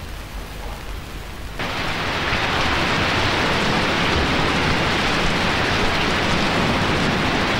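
Steady, heavy rain falling, coming in abruptly about a second and a half in over a quieter low hum.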